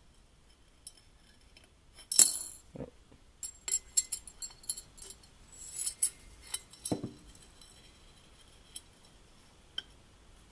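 Small metal bushings and a magnet clinking against the inside of a glass jar as the bushings are fished out of acetone with neodymium magnets. The loudest clink comes about two seconds in, then a quick run of clinks and taps, and two lone clicks near the end.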